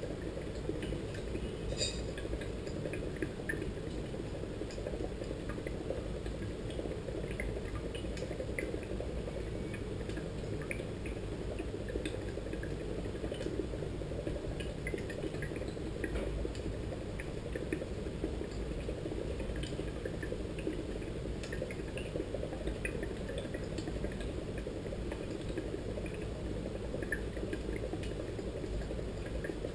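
Oxygen flowing through the water of a wall-mounted oxygen humidifier bottle, bubbling steadily with many small scattered pops and ticks.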